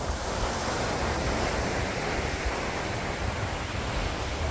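Ocean surf breaking and washing up the beach in a steady hiss, with wind rumbling on the microphone.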